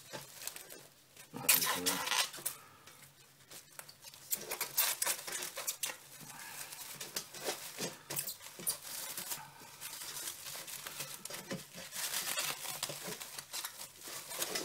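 Clear plastic film crinkling and rustling as hands fold and press it around a damp paper-towel bundle of cuttings, in an irregular run of crackles.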